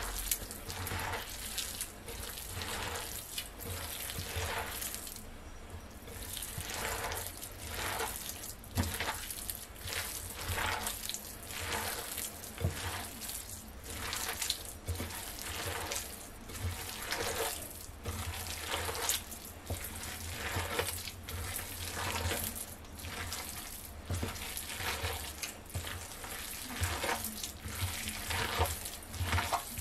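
Hands squishing and kneading raw chicken mince with chopped vegetables in a glass bowl: wet squelching strokes, repeated a little more than once a second, with a brief pause about five seconds in.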